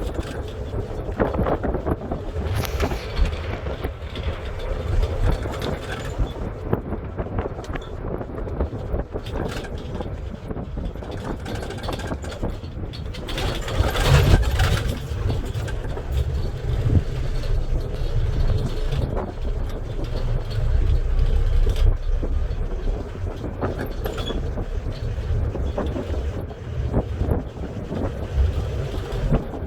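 A moving vehicle's steady low rumble of road and engine noise, swelling louder about halfway through.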